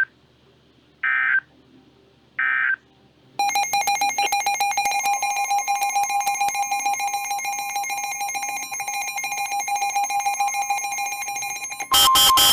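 Emergency Alert System tones from a weather radio broadcast. Two short bursts of warbling data tones (the end-of-message code) come first, then a long buzzing alert tone with a fast rattle; a second steady tone joins about five seconds in. Near the end a louder burst of data tones opens the next alert.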